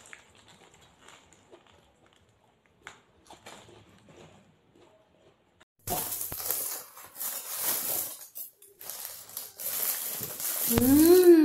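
Faint chewing, then about six seconds in a sudden loud crinkling and crackling of the paper wrapping around a shawarma wrap as it is handled and bitten into. Near the end comes a long 'mmm' hum of enjoyment that rises and then falls in pitch.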